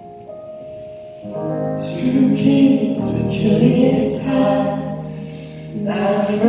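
Live music performance: a singer with piano accompaniment. It starts with quieter held notes and grows fuller and louder a little over a second in.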